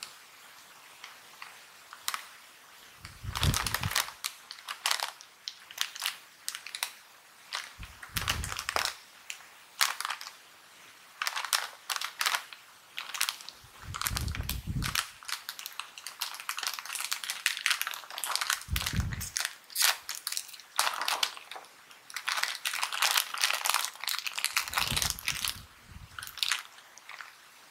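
Foil-lined plastic snack bag of corn chips crinkling and crackling as it is handled, gripped at the top and torn open. Five dull low thumps are spread through it.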